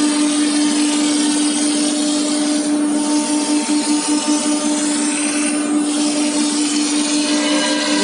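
Wood CNC router spindle running at a steady pitch while its bit cuts into a wooden door panel, with a dense hiss of cutting noise that eases briefly twice.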